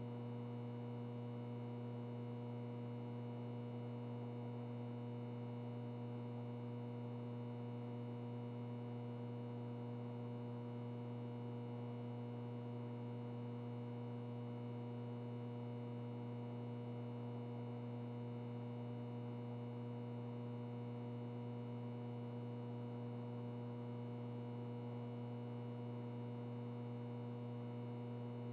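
Ventilation noise with a light electrical buzz: a steady, unchanging low hum with higher overtones over a faint airy hiss.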